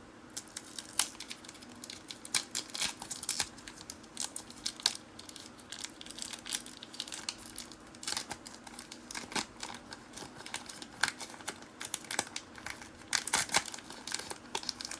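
A trading-card pack wrapper being torn open and crinkled by hand, a dense run of irregular crackles and rustles with sharper crinkles about a second in and near the end.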